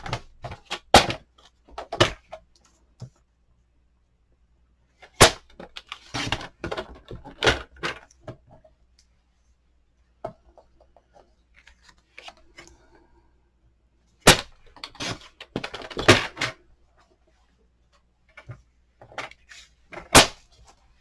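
Paper-craft handling noise as a strip is trimmed off a piece of cardstock: a handful of sharp clacks and knocks, with rustling and scraping of card between them.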